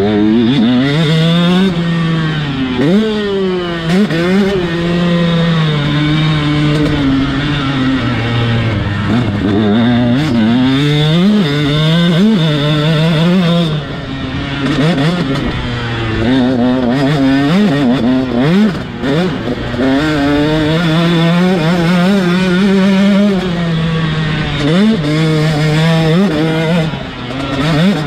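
KTM SX 125's single-cylinder two-stroke engine revving hard through the gears on a motocross track. The pitch climbs and drops over and over as the throttle is opened and shut and gears change, easing off briefly about halfway through and again near the end.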